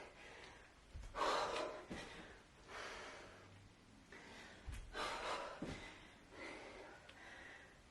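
A woman breathing hard from exertion during lunges, with about five forceful breaths at roughly one-and-a-half-second intervals. A few dull low thumps come in between.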